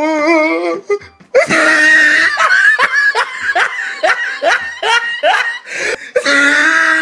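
Music with laughter, likely a soundtrack added in editing rather than sound from the cats. It opens with a wavering held voice, breaks off briefly about a second in, then goes into a quick run of rising squeaky sounds, several a second.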